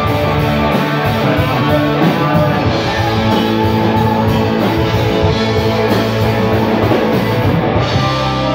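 Rock band playing live: electric guitars, bass and a drum kit in a steady, loud groove. Just before the end the sound turns duller as the top end drops away.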